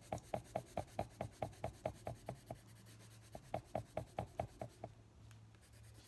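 Prismacolor coloured pencil scratching over colouring-book paper in quick back-and-forth shading strokes, about four or five a second, with a short pause midway; the strokes stop about five seconds in.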